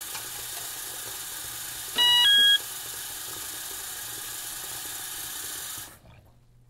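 A two-note electronic beep about two seconds in: a short lower tone followed at once by a higher one. A steady hiss runs underneath and cuts off near the end.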